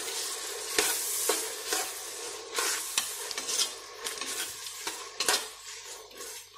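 Chopped onions, tomatoes and green chillies sizzling in oil in an aluminium pressure cooker as they are sautéed soft, with a spatula stirring and scraping and knocking sharply against the pot's base and sides several times.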